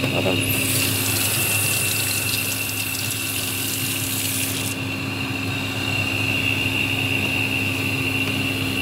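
Tap water running into a stainless steel sink for about four seconds, starting about half a second in and cutting off suddenly, over a steady mechanical hum.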